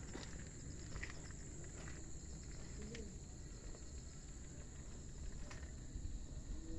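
Insects chirring steadily in a high-pitched band, over a low rumble, with a few soft clicks.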